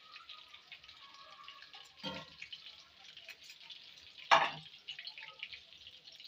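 Breaded chicken nuggets frying in shallow hot oil in a pan, a steady dense crackle and sizzle. A metal slotted spoon knocks against the pan twice, about two seconds in and louder just after four seconds.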